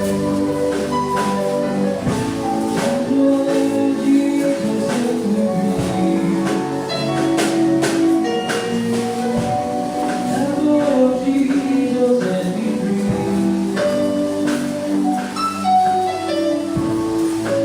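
Church worship music: sustained held chords with light percussion taps, played steadily.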